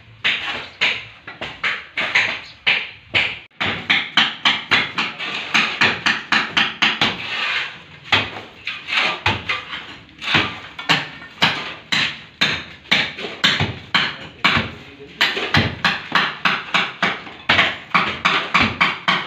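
Hammer blows chipping into a plastered brick wall in rapid succession, about three strikes a second, breaking out plaster and brick.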